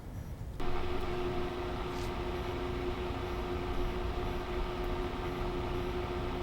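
Steady mechanical hum and whir with a constant tone, stepping up abruptly about half a second in and then holding even.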